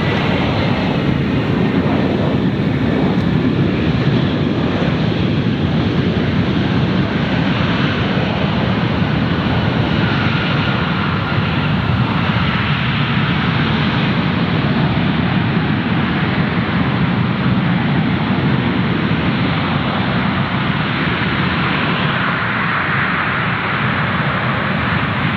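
Jet airliner's engines, loud and steady, with a faint whine that slowly falls in pitch as the plane passes.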